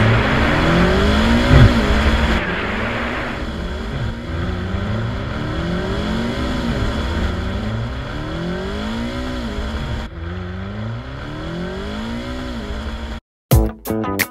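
Inside a historic race car during a crash: loud crashing and scraping noise for the first couple of seconds. Then an engine note rises and falls over and over, about every second and a half. Near the end the sound cuts out briefly and guitar music begins.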